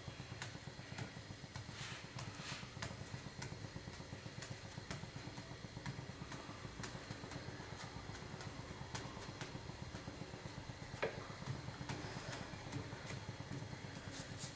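Steady low rush of a gas burner on high flame under a tawa, with a few faint taps of a wooden spatula on the bread and pan.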